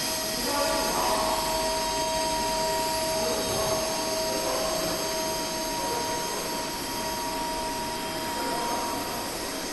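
Demetdent JD-T5 five-axis dental milling machine running: a steady whir and hiss with a steady whine on top.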